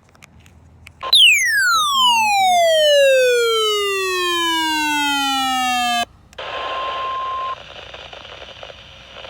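A loud electronic tone with a buzzy, many-overtone sound sweeps steadily down in pitch for about five seconds and cuts off abruptly. A click and a short beep come before it. Afterwards there is radio static hiss with a steady beep near 1 kHz lasting about a second.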